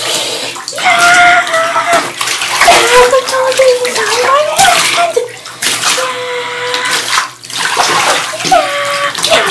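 Shallow bathwater splashing and sloshing as plush toys are shoved and swirled through it by hand. Over it, a voice makes several long, wavering wordless sounds that slide up and down in pitch.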